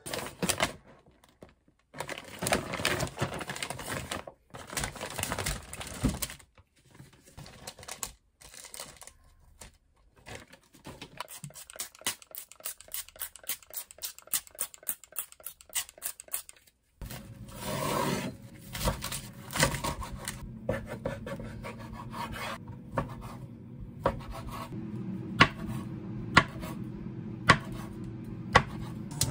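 Kitchen food-prep sounds. A hand oil spray bottle is pumped over fried foods in an air-fryer basket in a run of quick, regular sprays. Later a steady low hum comes in, and a knife chops sausage on a wooden cutting board with a few sharp knocks near the end.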